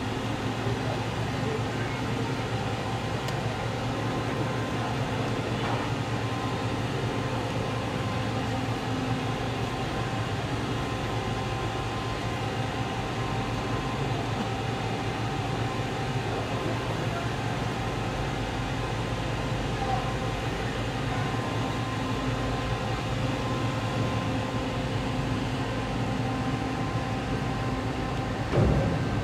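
Steady mechanical hum of the berthed car ferry Silver Queen's machinery running, with a few steady tones over the drone. A single short knock near the end.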